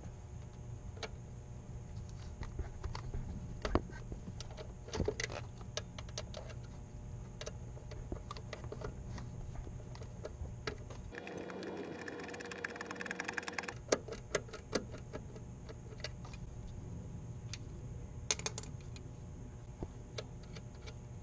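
Scattered metallic clicks and taps of hand tools on the starter solenoid's terminal nuts. About eleven seconds in comes a run of rapid, even ratchet clicking lasting two to three seconds. A steady low hum runs underneath.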